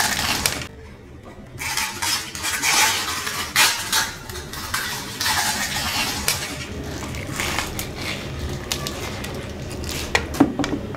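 Close-up eating sounds of pani puri crammed into a mouth: crisp puri shells crunching and wet chewing in irregular bursts, with a short lull about a second in and a few sharp clicks near the end.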